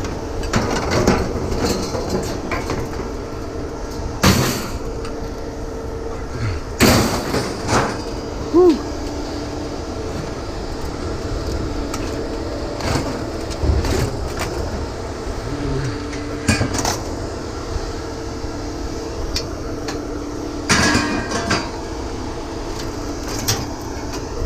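Scrap metal clanking and banging as it is handled, a few sharp knocks standing out, over a steady engine hum.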